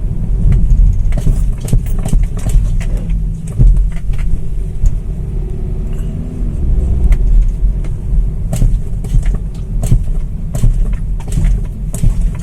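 BMW X1's front suspension knocking, a dull repeated tuk-tuk each time the brakes are tapped, over the car's low driving rumble inside the cabin. The mechanic takes it for worn lower control-arm bushings letting the front left wheel shift back.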